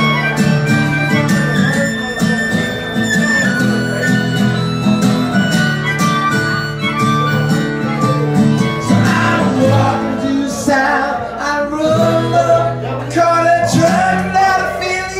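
Harmonica playing a melody over a strummed acoustic guitar, live and amplified.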